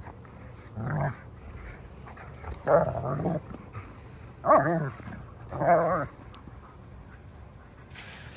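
A dog giving four short, pitched, strained calls in a scuffle with another dog.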